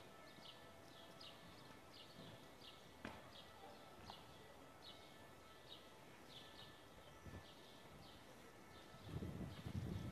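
Faint footsteps clicking on pavement, about two to three steps a second, with a brief low rumble near the end.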